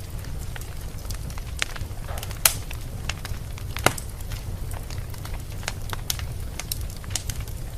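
Wood fire in a fireplace crackling, over a steady low rumble of the flames, with scattered small pops and two louder snaps about two and a half and four seconds in.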